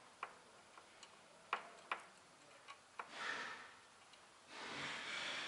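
Scattered sharp clicks and taps, about seven in the first three seconds, from test leads and connectors being handled on car wiring. After that come two short stretches of hiss that sound like breathing.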